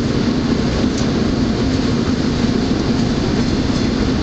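SEPTA Route 10 trolley car running on its rails: a steady, loud rumble of wheels and motors with a constant low hum.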